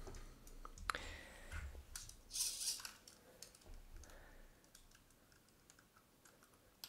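Faint clicks and taps of a small 3D-printed plastic tank being picked up off a wooden desk and turned over in the hands, with a brief scrape about two and a half seconds in.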